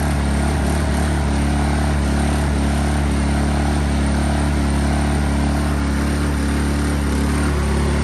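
Honda EU-series inverter generator's small four-stroke engine running steadily just after a first-pull cold start, on choke and still warming up.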